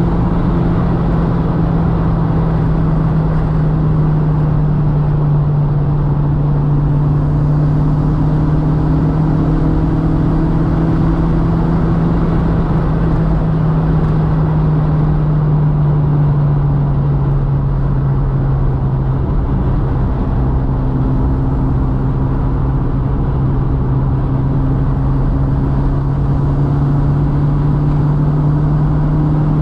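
VW Mk2's 1.8-litre turbocharged four-cylinder engine running steadily under way, with tyre and road noise. The engine note holds nearly constant, sinking slightly about halfway through and staying there.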